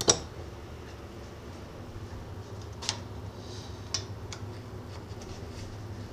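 A hand tool clicking and tapping against the metal back gear guard of a South Bend 13-inch lathe's headstock as its screws are worked loose. One sharp click comes at the very start, then two more about three and four seconds in, with a few fainter taps, over a steady low hum.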